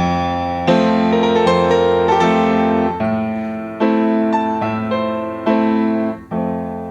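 Piano playing the instrumental intro of a song, struck chords repeated roughly once a second and each left to ring.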